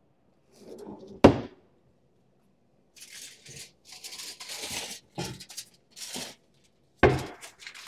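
Kitchen cabinet and drawer handling: a drawer knocks shut about a second in. Then comes several seconds of crackly rustling as pre-cut sheets of aluminium foil are pulled from a lower cabinet, and another knock near the end.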